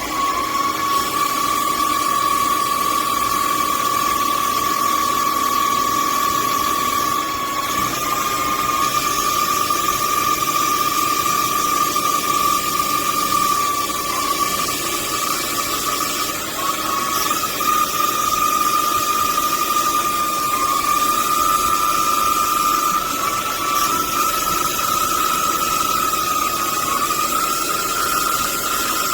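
DIY CNC lathe turning a part: the spindle motor's steady high whine, stepping up in pitch a few times, over steady machining noise.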